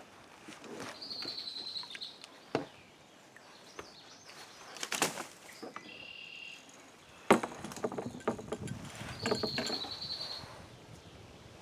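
Hollow knocks and scuffs of a kayak and paddle being handled, the loudest about seven seconds in, with a songbird singing the same short phrase twice in the background.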